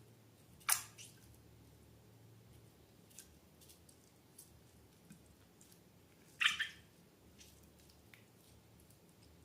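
Slime being handled: two short wet squelches, the first just under a second in and the second about six and a half seconds in, with faint small clicks and crackles between them.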